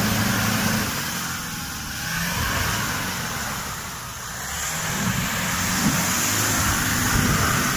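Toyota Hilux pickup's engine pulling under load as the truck wades through muddy water, with water splashing and churning around the wheels. The engine note sags about halfway, then builds again.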